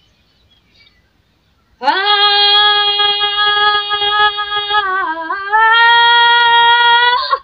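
A woman singing one long held note at a high pitch, starting about two seconds in; the pitch dips briefly past the middle, then rises a little and holds until it stops suddenly.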